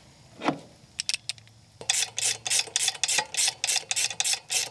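Ratchet wrench clicking in a steady rhythm, about five clicks a second, as a spark plug is backed out of the front cylinder of a V-twin generator engine. A soft knock and a few light clicks come first as the socket goes on.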